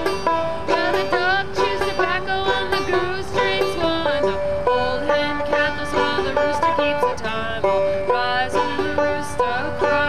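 Banjo playing an instrumental passage: a quick, steady run of picked notes with a few sliding notes.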